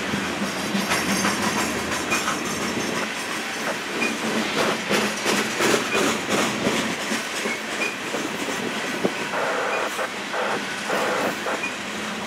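Loaded coal cars of a Union Pacific unit coal train rolling past, a steady rumble of wheels on rail broken by many rapid clicks and clanks.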